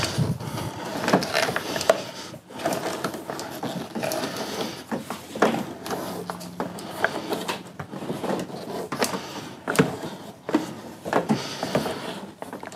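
Heavy twin-core cable being wound by hand back onto a plastic spool: the reel turning with irregular clicks and knocks as the cable rubs and drags on.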